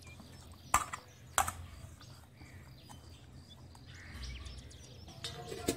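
Hands mixing marinated fish pieces in a stainless steel bowl, with two sharp knocks against the bowl in the first second and a half and two more near the end, over a low background.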